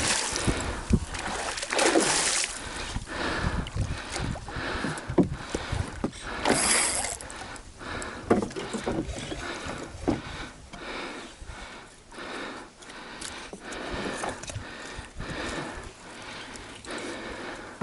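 Irregular splashes of water and knocks against a small fishing boat. Two louder splashes come about two seconds and six and a half seconds in.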